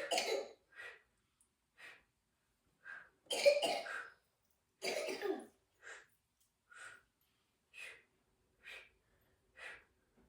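Coughing: two louder, rough coughs about three and a half and five seconds in, among short breathy puffs that come about once a second.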